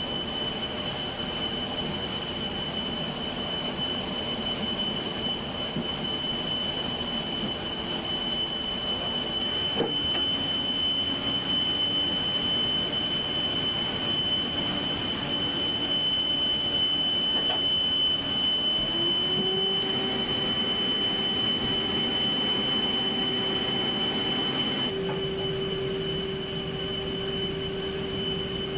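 Aircraft ground machinery running steadily with a rushing noise and a constant high-pitched whine. A lower hum rises slightly in pitch a little before twenty seconds in, and the high whine cuts off about twenty-five seconds in.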